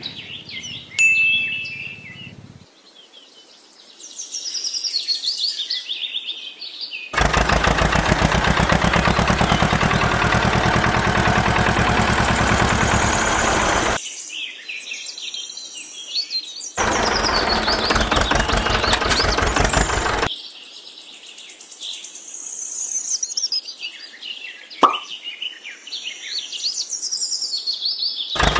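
Birds chirping, broken twice by the small motor of a miniature threshing machine running with a fast rattling chatter: once for about seven seconds, then for about three seconds, each starting and stopping abruptly. A single sharp click comes near the end.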